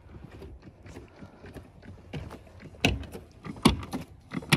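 Several sharp clicks and knocks, mostly in the second half, from work on a car during brake bleeding.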